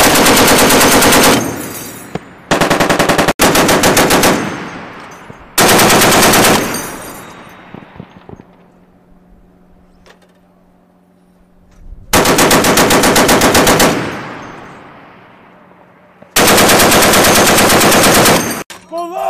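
M2 .50-calibre Browning heavy machine gun firing short bursts of about one to two seconds, at roughly nine shots a second. Each burst is followed by a ringing echo that dies away, and there is a longer pause midway.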